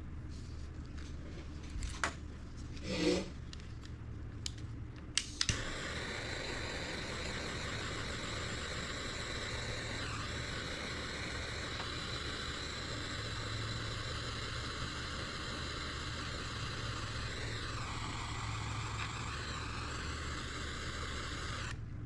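A few handling clicks and knocks, then a heat gun starts and blows steadily for about sixteen seconds, shrinking heat-shrink tubing over the repaired wire splices, before it cuts off suddenly near the end.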